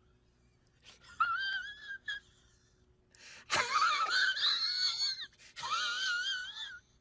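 A high, wavering, wailing whine in three bursts, the middle one loudest and opening with a sudden attack.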